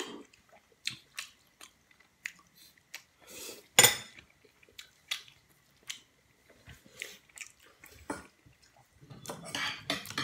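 Person eating spaghetti: chewing and small mouth sounds, with a metal fork and spoon clinking against a porcelain bowl. One louder, sharper noise about four seconds in.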